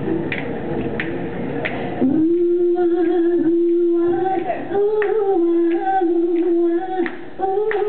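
An a cappella vocal group opening a doo-wop number. Sharp clicks from the singers' hands keep a steady beat, about one every two-thirds of a second, over background noise. About two seconds in, the voices come in on a long held note that steps up and back down a few times.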